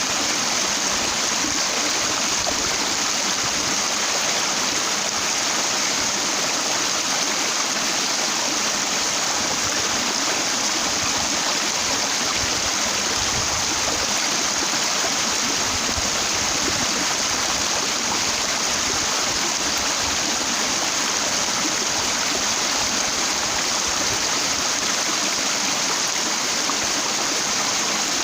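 Mountain stream water rushing steadily over a broad flat rock, an even rushing with no breaks.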